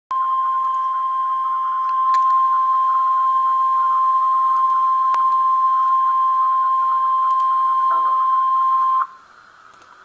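NOAA Weather Radio warning alarm tone: a single steady high tone of about 1050 Hz, held for about nine seconds, then cutting off into faint radio hiss. The tone signals that an alert broadcast, here a tornado watch, is about to follow.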